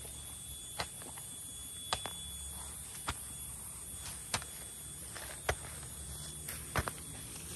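Insects droning steadily with a high-pitched hiss, with a sharp knock about once a second.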